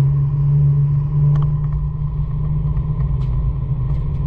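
Nissan 350Z's 3.5-litre V6 running at steady revs, heard from inside the car as an even low drone over road rumble, with a few faint ticks.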